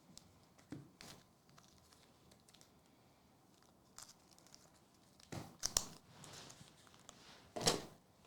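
Trading-card pack wrapper being torn open and crinkled: a few faint rustles, then louder tearing and crinkling bursts in the second half.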